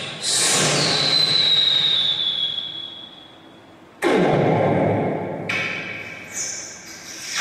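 A mimicry artist makes sound effects with his mouth into a microphone over a PA: a sudden hiss carrying a long whistle that slowly falls in pitch, then about four seconds in a sudden blast whose low rumble sweeps down and fades, followed by more hissing.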